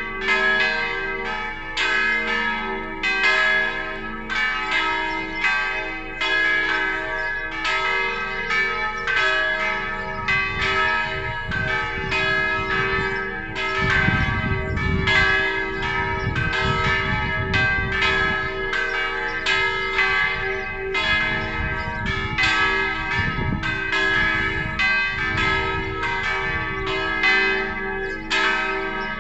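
Church bell ringing: a steady run of strikes, about two a second, each tone ringing on into the next. A low rumble joins in the middle stretch.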